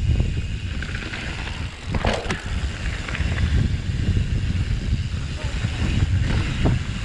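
Mountain bike riding down a dirt and gravel trail: tyres rolling and the bike rattling over rough ground, with wind rushing over the microphone. Clattering knocks about two seconds in and again near the end.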